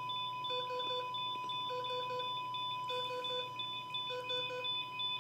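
Recorded heart-rate monitor alarm played back. A steady high tone runs under groups of three quick beeps that repeat about every 1.2 seconds.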